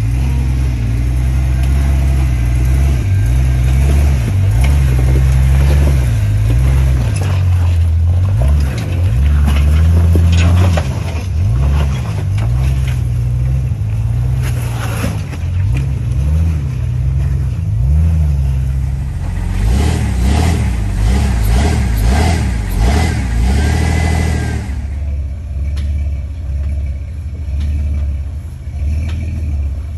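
Off-road Jeep engine revving up and down over and over as it crawls the trail, with crackling clicks over it. About twenty-five seconds in the revving gives way to a steadier, lower run.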